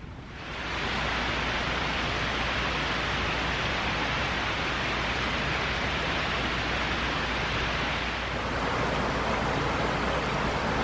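Shallow stream rushing over rocks and small stepped cascades, a steady rush of water that fades in within the first second and changes slightly about eight seconds in.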